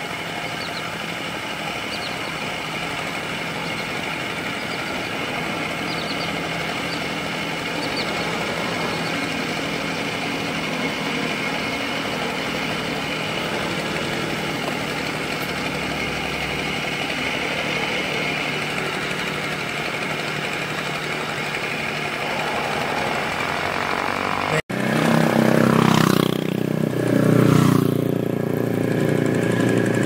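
Two-wheel hand tractor engine running steadily while it drags a harrow through the wet rice paddy. After an abrupt cut about 25 s in it is louder and closer, its pitch rising and falling.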